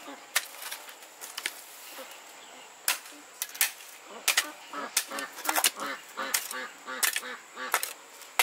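Domestic waterfowl honking in a quick run of short calls, about three a second, from about four seconds in, among scattered sharp clicks and knocks.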